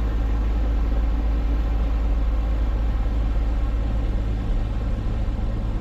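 Passenger ferry underway: the engines run with a steady low drone, and an even hiss from wind and water over it.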